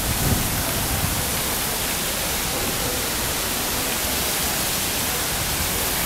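Water falling down an artificial waterfall built of stacked stone blocks: a steady, even rush of water.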